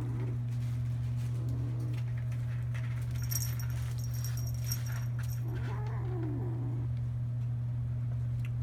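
A kitten meowing: a short faint meow about two seconds in and one longer, wavering meow about six seconds in. A steady low hum runs underneath.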